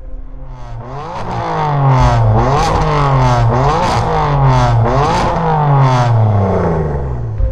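BMW F82 M4's twin-turbo inline-six revved repeatedly through an Fi Exhaust valved catback with catless downpipe. There are about six quick rises in pitch, each falling back more slowly, and it stops just before the end.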